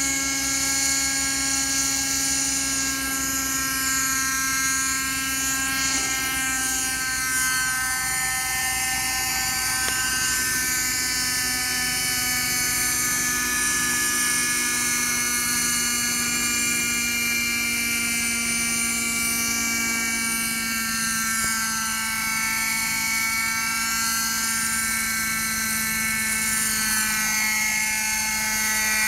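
Thunder Tiger Raptor 50 V2 nitro RC helicopter hovering: its glow engine and rotors give a steady high-pitched whine whose pitch drifts only slightly.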